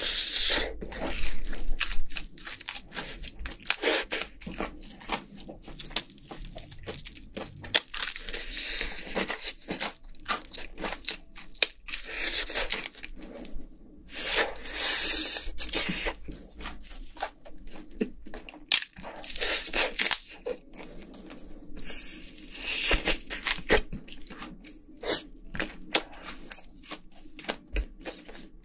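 Biting and chewing crispy-skinned fried chicken: the crust crunching and the meat tearing, in bouts every few seconds.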